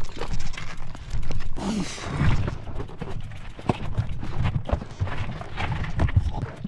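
Heavily loaded gravel bike clattering over rocks on a rough boulder-field trail: irregular knocks and rattles from the tyres, frame and packed bags.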